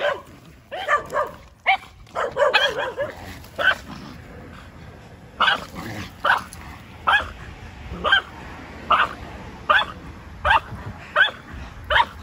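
Small white dog barking in alarm at an unfamiliar statue. A quick run of barks comes in the first few seconds, then single sharp barks at an even pace, about one every 0.8 seconds.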